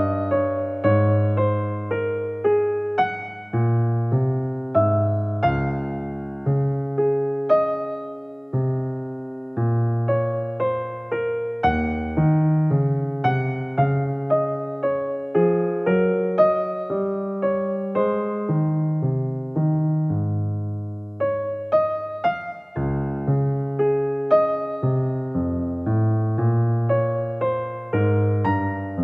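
Background piano music: a solo keyboard piece of melody notes and chords over bass notes, each note struck and fading.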